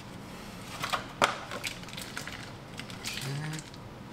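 Scattered clicks and light knocks of food being dropped into a slow cooker, with one sharper click a little over a second in.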